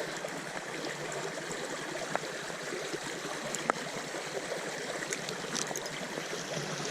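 Small stream running over its bed, a steady rush and trickle of water, with a few faint clicks.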